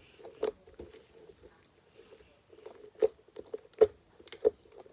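Sticky slime with glitter glue being kneaded and stretched by hand, giving irregular wet clicks and pops, one about half a second in and a cluster of sharper ones from about three seconds on.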